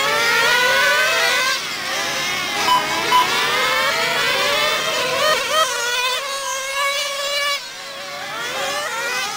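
Several 1/10-scale nitro RC cars' small two-stroke glow engines running at high revs, their overlapping pitches rising and falling over one another as the cars accelerate and brake around the track.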